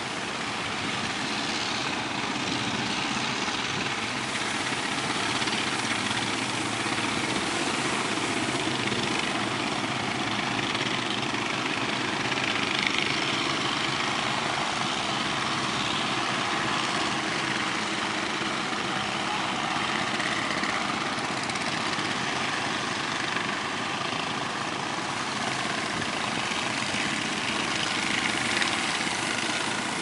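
Surf breaking in a steady rush of wave noise, mixed with the running engines of small fishing boats pushing out through the waves.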